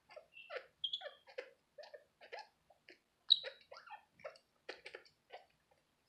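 Senegal parrot giving a rapid string of short calls, about two to three a second, with a sharp high squeak about a second in and a louder one just past the middle. These are its vocalisations while rubbing itself on its perch in hormonal breeding-season behaviour.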